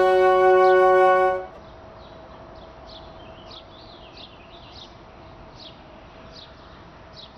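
A held chord of background music stops about a second and a half in. After it, birds chirp over a quiet background hiss and a faint steady hum, with short high chirps coming at irregular intervals.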